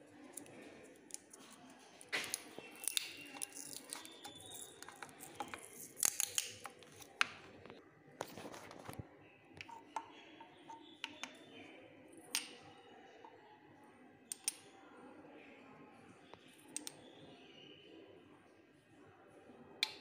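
Handling noise from centrifuge parts: irregular sharp clicks and light knocks as a plastic tube bucket, a rubber cushion and a glass test tube are picked up and set down.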